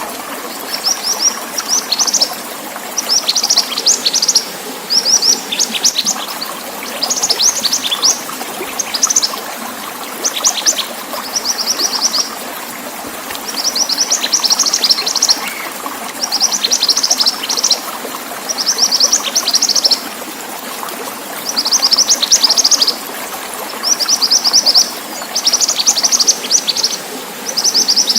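Mantenan songbird singing high-pitched bursts of rapid chattering notes, each burst about a second long and repeated every second or two, over a steady background of running water.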